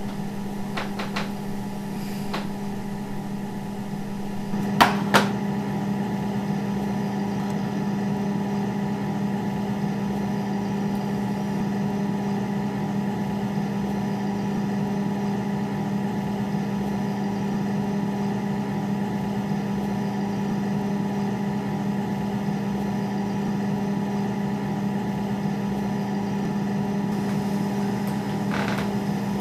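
Steady electrical hum of an open refrigerator, one low tone with overtones above it. Two sharp clicks come about five seconds in.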